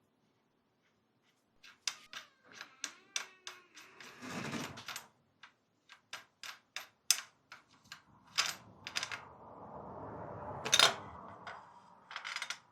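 Rapid, irregular metallic clicks and knocks of tools and parts on a motorcycle's steering head, some ringing briefly, with two rougher scraping stretches as the steering stem is worked loose; the loudest knock comes near the end.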